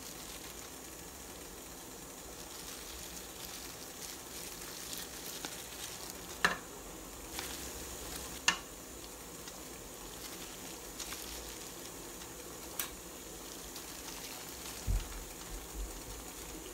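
Water boiling under a metal steamer rack, a steady hiss, with a few sharp clicks and light knocks as rice paper rolls are laid onto the rack.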